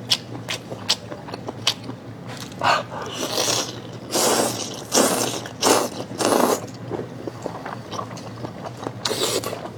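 Close-up eating noises from seafood being eaten: a few light clicks, then a run of short wet slurps and chews, with one more near the end.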